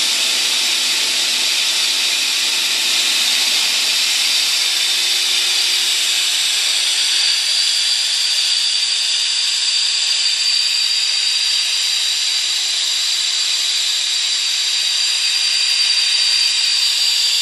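Running PE pipe extrusion line giving a loud, steady hiss with a faint high whine in it.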